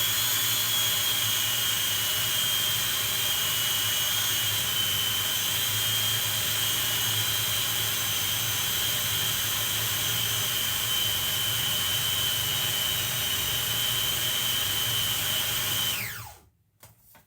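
Food processor motor running steadily with a high whine as it mixes margarine, cornflour and baking powder into a cake dough. Near the end it is switched off and the whine falls as the blade spins down.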